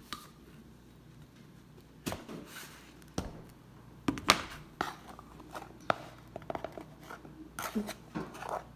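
Scattered light knocks, taps and rustles of kitchen handling as powdered sugar is measured out: a container and measuring cup being picked up, scooped and set down, several sharp taps in the middle and a cluster of small clicks near the end.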